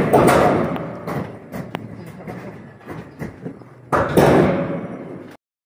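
Corrugated steel deck sheets being shifted, a rumbling metal scrape in two long rushes: one fading over the first second, another about four seconds in that cuts off suddenly.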